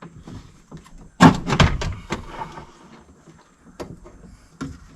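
Metal window regulator knocking and clanking against the inside of a 2011 Ford Expedition's front door shell as it is worked into place, with a loud cluster of knocks about a second in and a few lighter clicks later.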